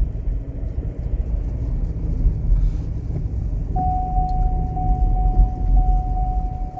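Ford Endeavour's seatbelt-warning chime starting about four seconds in, a high beep pulsing about twice a second, because the driver's seat belt is not fastened. Under it, steady road and engine rumble inside the moving car's cabin.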